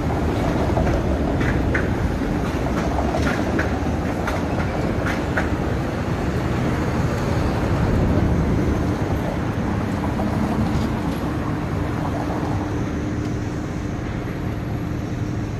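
Busy city intersection: a TTC Bombardier Flexity streetcar running over the rails, with short sharp clicks and squeaks from the track in the first few seconds, over steady traffic noise. A box truck passes close, the loudest moment about eight seconds in.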